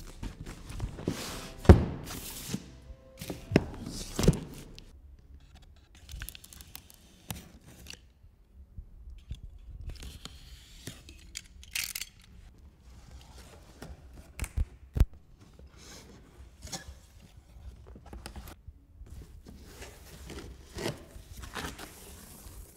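Cardboard shipping box being cut open and unpacked: tape tearing, and the cardboard lid and flaps scraping and knocking. There are several sharp knocks in the first five seconds, the loudest about two seconds in, then scattered rustles and knocks.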